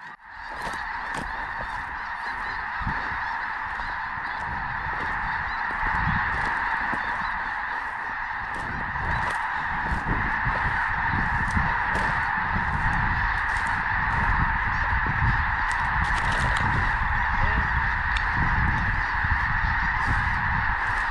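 A massive flock of snow geese calling overhead: thousands of overlapping honks merge into one loud, continuous din that slowly builds, over a low rumble.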